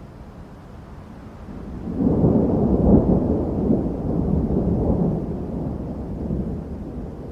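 Thunder rumbling from a thunderstorm: a low roll that swells sharply about two seconds in, peaks around three seconds, then slowly dies away over a steady background of rain.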